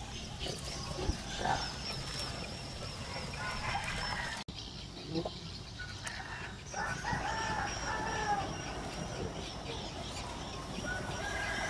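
A rooster crowing: one long call with several pitched lines, about seven seconds in, over a faint high steady tone.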